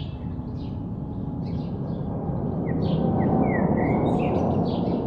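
Small birds chirping over and over, with a few quick rising notes, over a low rumble that swells to its loudest a little past the middle and then eases off.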